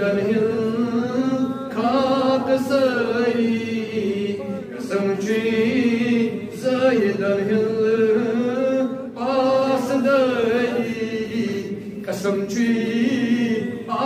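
A man chanting a munajaat, a devotional Islamic supplication poem, in a slow melodic voice, the lines broken by short pauses.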